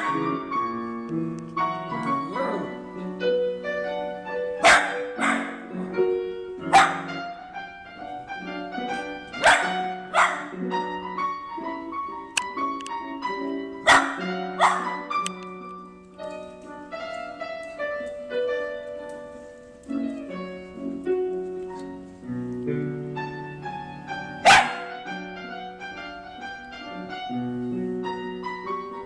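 Piano music with dogs barking over it: short barks now and then, several in quick pairs.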